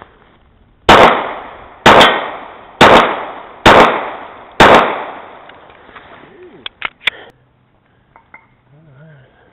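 Five pistol shots, about one a second, each with a fading echo, followed a couple of seconds later by a few small clicks.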